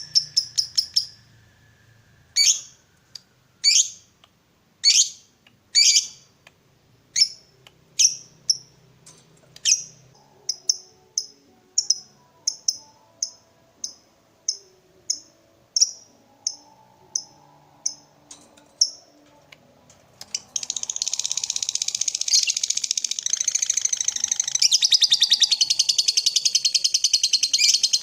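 Lovebird calling: a string of single sharp, high chirps that come closer together, then about two-thirds of the way through a continuous rapid chattering trill, the long 'ngekek'.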